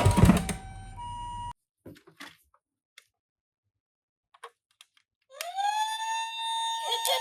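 A toy ambulance's electronic siren: after a loud noisy passage dies away in the first second and a short steady tone cuts off, there is a near-silent gap with a few faint clicks. About five seconds in, the siren starts, rising in pitch and then holding a steady wail.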